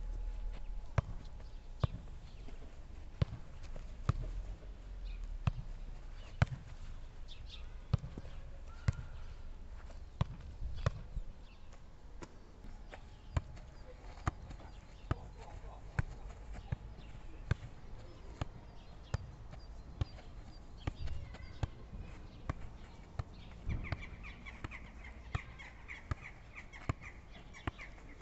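A volleyball being struck with the forearms in repeated underhand passes (bumps), a sharp slap of ball on arms about once a second.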